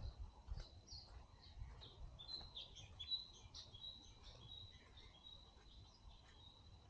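Faint bird calls in woodland: a run of short high chirps and whistles that thins out after about four seconds, over a thin steady high tone. A low bump sounds right at the start.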